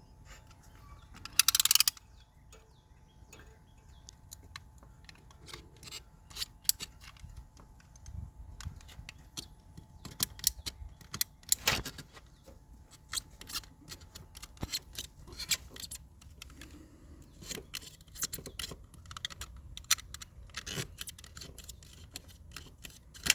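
Irregular clicks, rattles and light knocks of tools and a rubber vacuum hose being handled while the hose is cut and fitted to a carburetor vacuum port, with a short louder scrape about a second and a half in.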